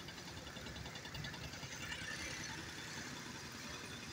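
Steady low rumble of vehicle engines close by, from a tractor hauling a loaded trolley and a truck on the bridge road.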